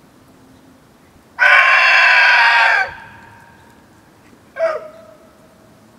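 Rooster crowing: one loud crow about a second and a half long, starting a little over a second in, then a shorter, fainter call about three seconds later.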